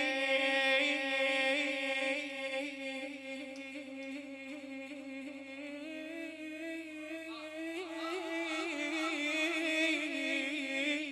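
A radood's voice holding one long chanted note with a wavering vibrato, fading near the end, over a steady low electrical hum from the sound system.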